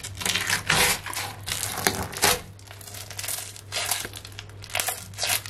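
A hand squeezing and pulling apart a tub of homemade glue slime, making irregular crackling, sticky tearing and squelching sounds. The slime is still very sticky and under-activated, with a dried skin on top.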